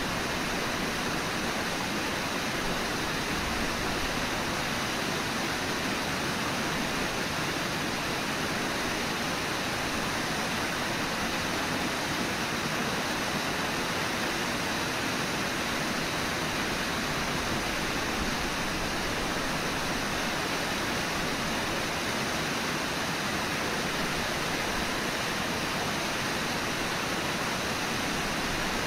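Steady rush of whitewater from Brooks Falls and the rapids below it, an even noise with no breaks.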